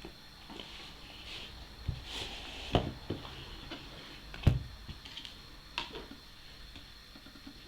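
A tablet's retail box and packaging being handled: scattered knocks, taps and light rustles, with two louder thumps a little under two seconds apart.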